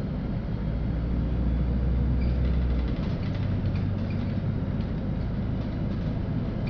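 Cabin noise of a LiAZ-5292 low-floor city bus under way: a steady low engine and road drone whose deep hum shifts up in pitch about three seconds in.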